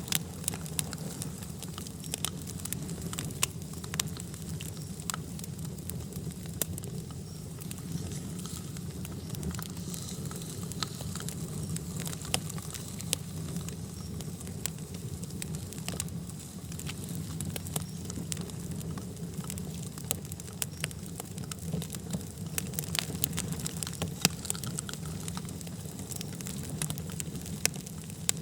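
Wood fire burning steadily, with a low rumble under frequent irregular crackles and pops.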